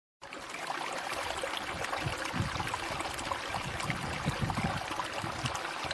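A steady rushing noise with faint scattered crackles and a fluctuating low rumble underneath.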